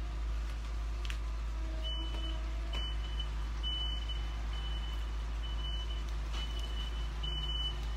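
A high-pitched electronic beep repeating from about two seconds in, each beep under half a second and the gaps uneven, over a steady low hum.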